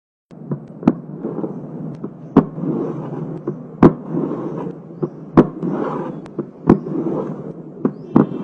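Recorded heart sounds: sharp clicks in pairs, repeating about every second and a half over a steady rushing noise. They start just after a brief silence.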